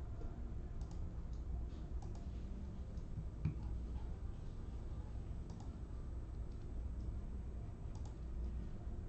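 Scattered faint clicks over a steady low hum, with one sharper click about three and a half seconds in.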